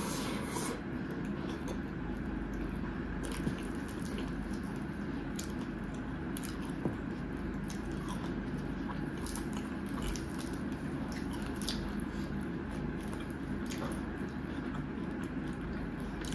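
Close-miked eating sounds: wet chewing, squishing and mouth clicks as a person eats rice mixed with taro eromba by hand, with scattered sharp clicks over a steady low hum.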